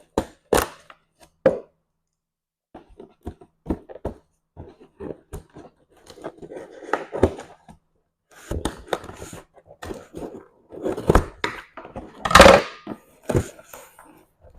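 Irregular taps, clicks and rustles of a box and its packaging being handled and opened by hand, with one louder, longer noise near the end.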